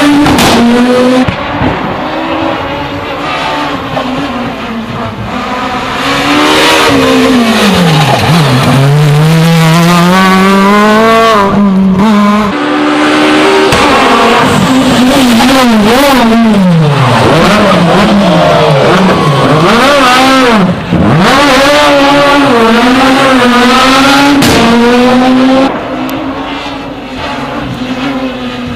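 Rally cars at full throttle on a special stage, one after another, engines climbing through the gears with quick shifts and falling away on the brakes. Each pass cuts off abruptly into the next.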